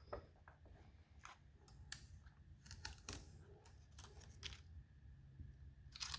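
Near silence: low room hum with a few faint, scattered clicks and light handling noises.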